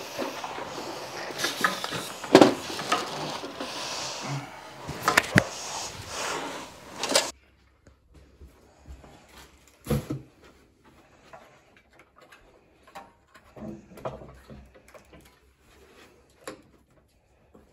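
Knocks, clunks and rattles of an industrial sewing machine table and its Juki machine head being moved and fitted together. A steady hiss under the first few knocks stops suddenly about seven seconds in, leaving quieter scattered taps and clunks.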